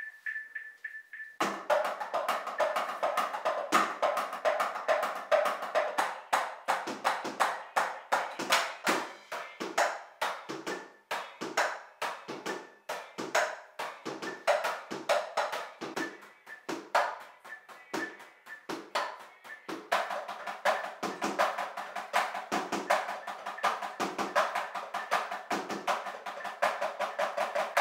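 Electronic drum kit being played: a fast, busy rhythm of drum hits that starts about a second and a half in and stops abruptly at the end.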